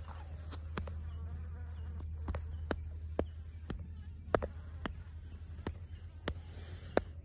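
A honeybee buzzing while tangled in long hair right at the microphone, a sound the beekeeper calls terrible. Sharp clicks are scattered through it, the loudest about four seconds in and near the end.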